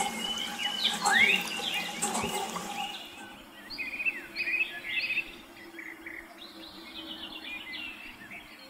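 Small birds chirping in many short, quick calls, busiest in the middle and thinning out toward the end.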